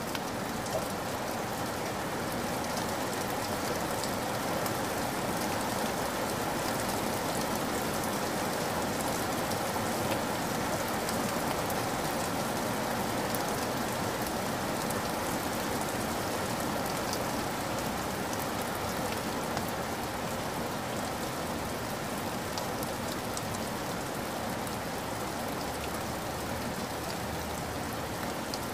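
Shallow stream flowing over gravel: a steady rush of water with fine trickling and splashing.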